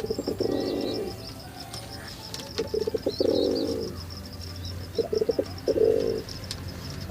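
Pigeons cooing: three coos, each opening with a short stutter and ending in a longer held note, over a rapid high chirping of small birds throughout.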